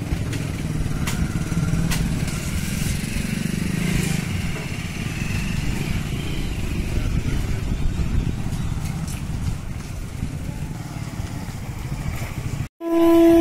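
Motorcycles riding past one after another with their engines running. Near the end the sound cuts out for a moment and a train horn starts to sound.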